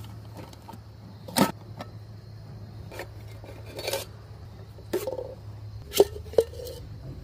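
Fire Maple X2 stove kit being unpacked by hand: the plastic lid pulled off the pot and the gas canister and burner parts lifted out, giving a string of sharp clicks and metal knocks, loudest about six seconds in. A steady low hum lies under it and stops near six seconds.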